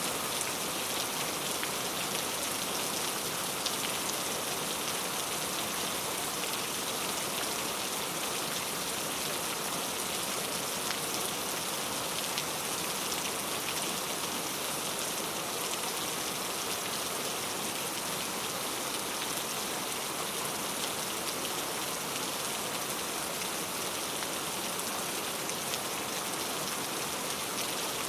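Heavy rain falling steadily, an even hiss of countless drops with faint individual drop ticks, without a break.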